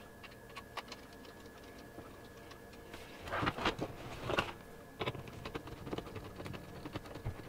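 Pleated window blind being hung back onto its mounting brackets by hand: scattered light plastic clicks and ticks, with a louder clatter and rustle midway.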